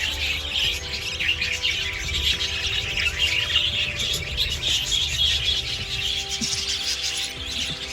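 A flock of budgerigars chirping and chattering without a break, many birds at once.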